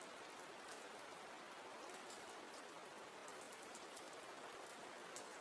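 Soft, steady rain: a faint, even hiss with scattered small drop ticks.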